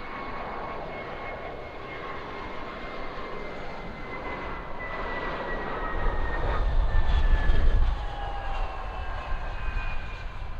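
Jet airliner passing with its engines running: a roar with a whine that falls slowly in pitch as it goes by. A deep rumble swells to its loudest about seven seconds in, then eases.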